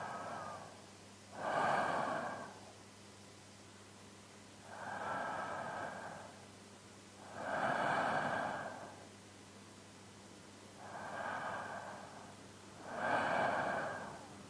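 A man's slow, even sleeping breaths, recorded close up in binaural sound: a softer breath followed by a louder one, the cycle repeating about every five and a half seconds, three times.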